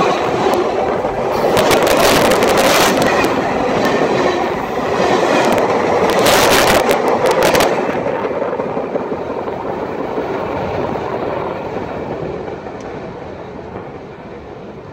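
Freight train cars rolling directly overhead: a loud rumble of steel wheels on rail with sharp clacks over the joints. After about eight seconds the clacks stop and the rumble fades steadily as the train moves away.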